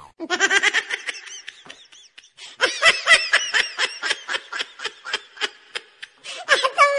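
Laughter: a rapid run of short ha-ha bursts, which breaks off briefly about two seconds in and then picks up again.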